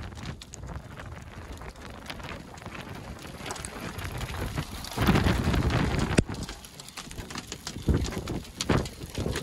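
Rain and wind noise under a supercell thunderstorm, an unsteady rush with low rumbling. It grows louder for about a second, around halfway through, then ends in a sharp knock, and a few more knocks follow near the end.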